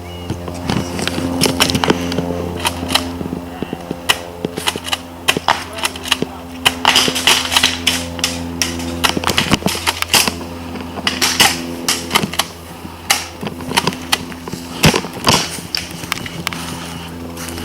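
Airsoft guns firing: irregular sharp pops and snaps, bunched in clusters, over a steady low hum.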